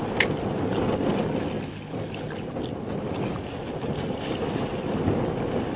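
Wind buffeting the microphone over the wash of sea water, a steady low rumbling noise, with one sharp click about a quarter second in.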